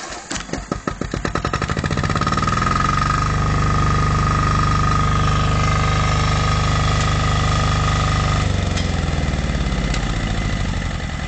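An engine starts and picks up speed over about two seconds, then runs steadily with a high whine over it. About eight seconds in it slows down and drops in pitch.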